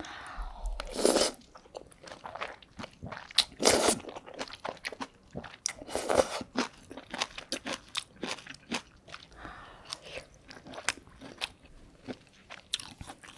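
A person eating mala tang noodles close to the microphone: three loud slurps in the first half, between steady wet chewing with many small clicks and smacks.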